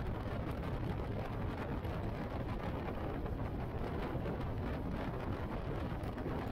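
Motorcycle on the move: a steady rush of wind over the microphone, with engine and road noise underneath, strongest in the low end and even throughout.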